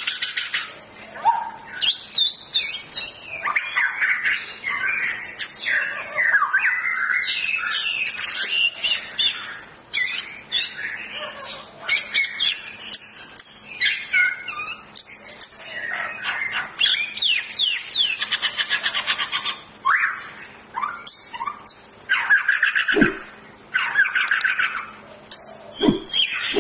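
White-rumped shama (murai batu) in full, agitated song: a fast, varied, almost unbroken stream of sweeping whistles and rapid repeated trill notes, broken by brief pauses.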